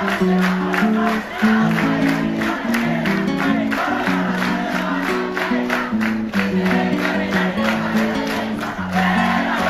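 Music: a melody moving in held notes over a steady beat.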